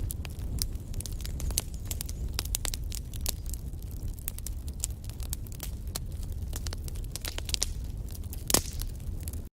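Wood fire burning in a fireplace: dense, irregular crackles and pops of burning logs over a low rumble of flames, with one louder pop about eight and a half seconds in. The sound drops out for a split second near the end.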